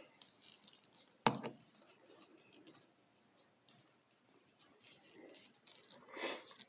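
Quiet handling of a plastic action figure, with one sharp click about a second in and a short rustle near the end.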